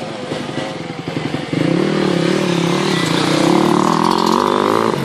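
Kawasaki KLX250 dirt bike's single-cylinder four-stroke engine running under throttle. It is quieter at first, then jumps louder about a second and a half in and stays loud and steady as the bike rides close by.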